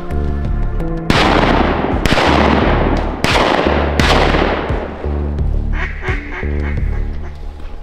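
Four shotgun shots roughly a second apart, each sharp and trailing off in a long echo, over background music. Near the end a duck quacks a few times.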